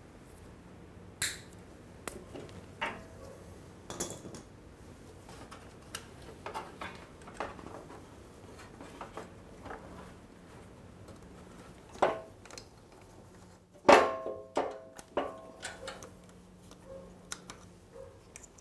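Steel parts and hand tools clinking and clanking while a motorcycle's rear brake caliper bracket and axle are worked free by hand. Scattered light taps and clicks, with a louder clank about 12 seconds in and a ringing metallic clatter about 14 seconds in.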